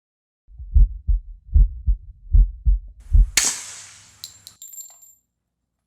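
Heartbeat sound effect: low double thumps, about one pair every 0.8 seconds. About three and a half seconds in, a sudden bright hissing hit with high ringing tones cuts in, then fades out over about a second and a half.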